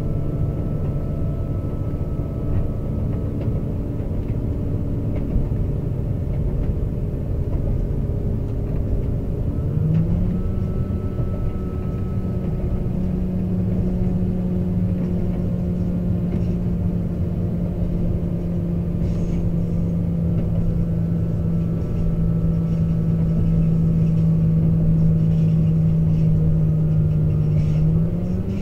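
British Rail Class 197 diesel multiple unit under way, heard from inside: the underfloor MTU six-cylinder diesel engine hums steadily over the rumble of the wheels on the track. Its pitch steps up about ten seconds in and again near the end.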